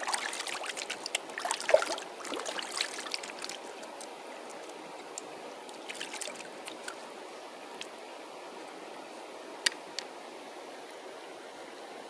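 Hands splashing in shallow stream water as a small catfish is let go and the hands are rinsed, over the steady hiss of the flowing stream. The splashing is busiest in the first few seconds, with lighter splashes later and two sharp ticks near the end.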